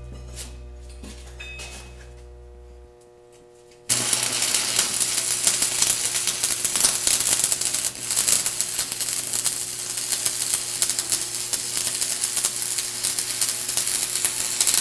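Electric arc welding on steel: a loud, steady crackle of the arc that starts suddenly about four seconds in and cuts off near the end.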